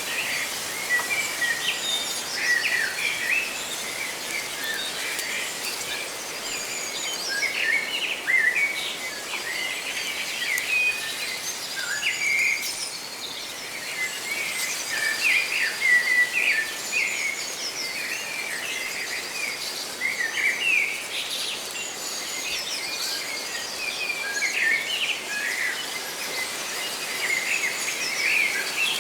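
Many small birds chirping and twittering in overlapping short calls and trills, over a steady rustle of leaves in the wind.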